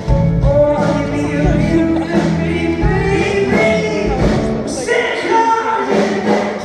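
Live pop-rock band playing with a lead singer, a steady drum beat under the vocal line.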